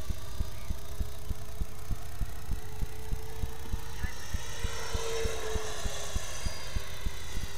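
Freewing F-15 electric ducted-fan model jet flying, its high fan whine swelling and bending in pitch as it passes about five seconds in, over a steady tone. A regular low throb, about three beats a second, runs underneath.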